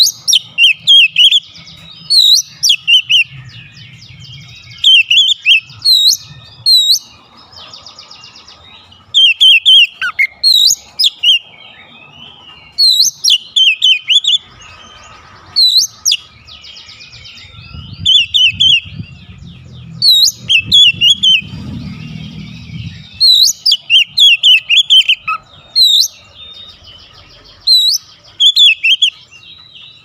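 Oriental magpie-robin (kacer) singing loudly in rapid bursts of short, sharp whistled notes, phrase after phrase with brief pauses between them, mixed with harsher buzzy notes.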